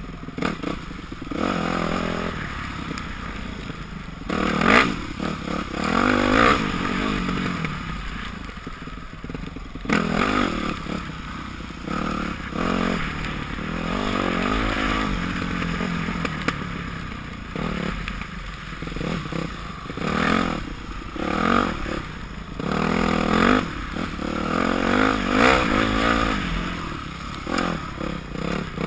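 A 2006 Yamaha YZ250F's 250 cc four-stroke single-cylinder engine, heard from the rider's helmet, revving up and dropping back over and over as the bike is ridden over rough trail. Sharp knocks and clatter from the bike hitting bumps break in several times.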